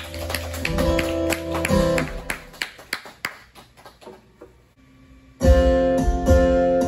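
Acoustic guitar strummed, the closing chords of a song dying away almost to silence; about five and a half seconds in, strumming starts again abruptly at full level as the next song begins.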